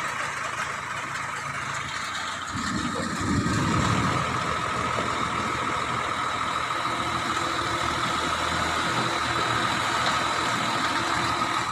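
Diesel engine of a backhoe loader running steadily as it carries and raises a loaded bucket, with a louder low rumble about three seconds in.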